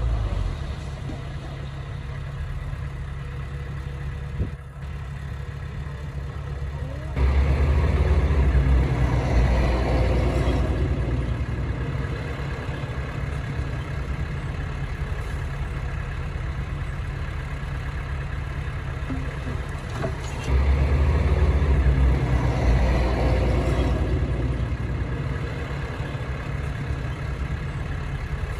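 Heavy diesel engine of a bulldozer running steadily. About seven seconds in and again about twenty seconds in, it comes under load and runs louder for a few seconds before settling back.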